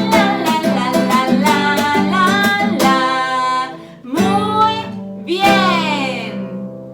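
Song with strummed acoustic guitar and singing; the strumming stops about three seconds in and the song ends on long held, sliding sung notes that fade out.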